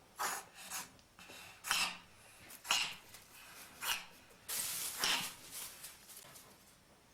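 Cat sneezing over and over, short sharp sneezes about a second apart, with smaller ones trailing off near the end.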